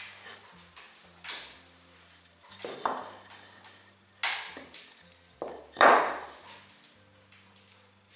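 Spruce shelf pieces being set down and shifted on a wooden workbench: about six separate wooden knocks and clacks, the loudest about six seconds in.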